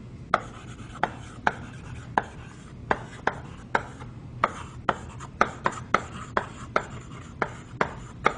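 Chalk writing on a blackboard: the chalk strikes and taps the slate with each stroke, making a string of sharp, irregular clicks, about two a second.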